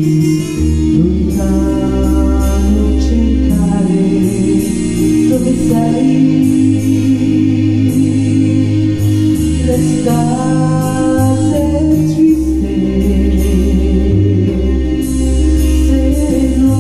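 A woman singing into a handheld microphone over instrumental accompaniment with long, sustained bass notes.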